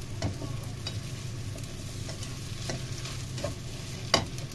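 Rice vermicelli and vegetables being stir-fried in a nonstick wok, sizzling lightly while a slotted spatula scrapes and tosses them, over a steady low hum. A sharp clack comes near the end.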